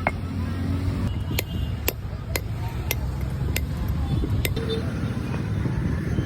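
Stone muller (varvanta) worked on a flat grinding slab (pata), with sharp stone-on-stone knocks about twice a second for a few seconds, over a steady low rumble.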